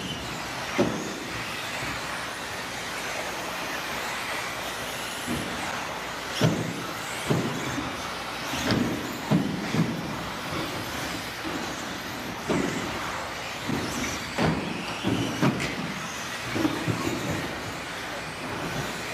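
A pack of 2WD 17.5 brushless electric RC buggies racing: a steady whir of motors and tyres on the track, with sharp knocks and clatters every second or two.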